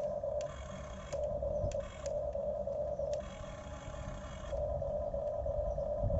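Electric motors of a Huina 1550 RC excavator whining in short spells that start and stop about every second, with a few sharp clicks.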